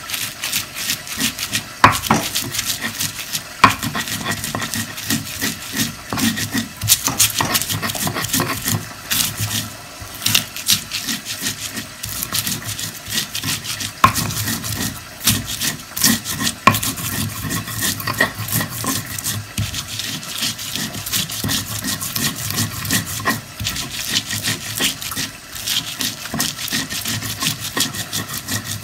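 Sambal ingredients (pineapple, shallots, chilies, salt, shrimp paste) being crushed and ground with a pestle in a mortar: continuous rhythmic rubbing and scraping, with a few sharper knocks.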